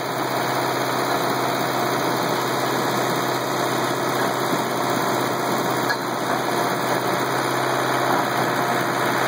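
Cross roll pipe straightener running: a steady mechanical drone with a constant hum, and a single light knock about six seconds in.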